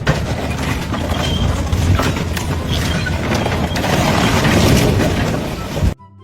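Loud machinery noise with many clattering knocks, cutting off suddenly near the end.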